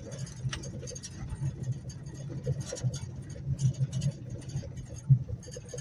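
Inside a car driving over a rough gravel road: a steady low rumble of engine and tyres, with irregular thumps from the bumps and a scattered crackle.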